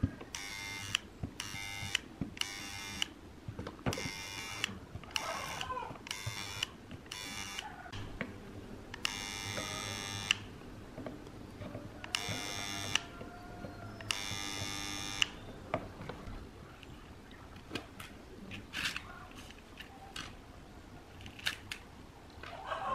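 Transformer soldering gun with a copper-wire loop tip buzzing in short bursts as its trigger is pressed and released: about nine quick bursts, then three longer ones of about a second each. Near the end come light clicks of tweezers among small electronic parts in a metal tin.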